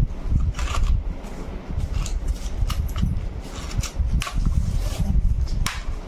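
Tissue paper and a plastic pouch being unwrapped and handled, crinkling and rustling in irregular crackles over a low steady rumble.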